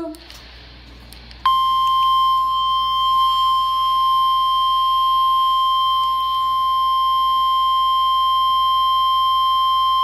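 The NOAA Weather Radio 1050 Hz warning alarm tone, played through a Midland weather radio's speaker. It is a single steady high beep that starts about a second and a half in and holds unchanged, sounding the Required Weekly Test of the station's alarm.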